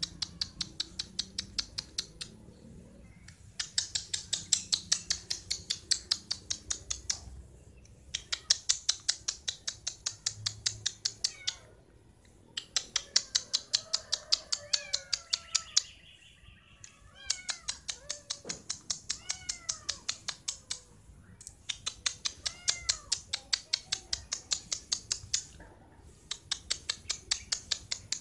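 A cat meowing several times in the middle stretch, under a louder rapid clicking of about ten clicks a second that comes in bouts of a few seconds each with short pauses.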